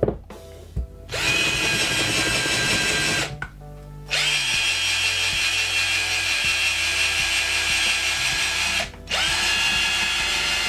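IKEA FIXA 14.4 V cordless drill/driver boring into a wooden block. Its motor whines steadily in three runs, one of about two seconds, one of about five seconds, and a last one starting about nine seconds in, with short pauses between.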